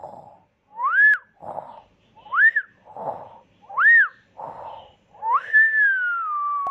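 Cartoon-style snoring: a rough, breathy snore alternating with a whistle that rises and falls, about every one and a half seconds. The last whistle is long and slides slowly down in pitch.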